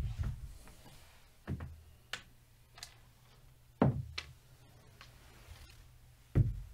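Sharp clacks and knocks of casino chips and dice on a craps table, about seven separate hits spaced irregularly, the loudest near the end.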